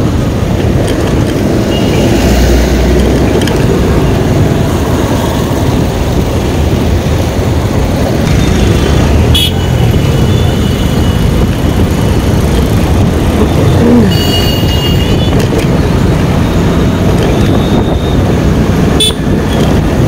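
Motorcycle riding through heavy city traffic: a steady rush of engine and road noise, with vehicle horns tooting several times, the loudest about fourteen seconds in.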